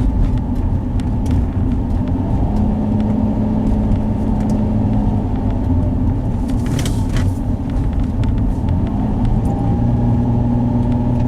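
Car being driven, heard from inside the cabin: a steady low rumble of engine and tyre noise with a low hum, and a brief rush of hiss about seven seconds in.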